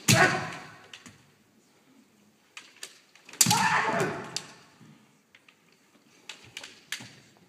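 Kendo sparring: two loud kiai shouts, each starting with a sharp crack of a strike, one right at the start and one about three and a half seconds in, each fading over about a second. In between and near the end come light clacks of the bamboo shinai tapping together.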